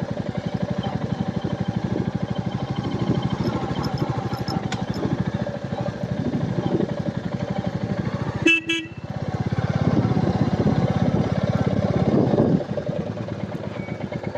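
Royal Enfield Meteor 350's single-cylinder engine running with a steady rapid thump, a short horn toot about eight and a half seconds in, then the engine pulling harder for a few seconds before easing off again.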